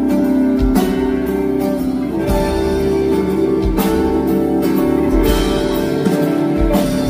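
Live band playing an instrumental passage of a pop ballad, with guitar carrying sustained chords over a slow, soft beat.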